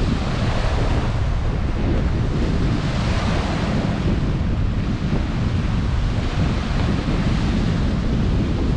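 Strong wind buffeting the microphone over waves breaking steadily on a lake shore.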